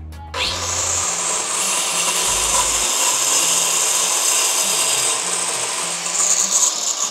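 Endico SLOK30 5-inch circular saw starting up and cutting through two stacked pieces of plywood, about 1.5 inches deep. The blade's loud, steady, high-pitched cutting noise begins abruptly just after the start and holds through the cut.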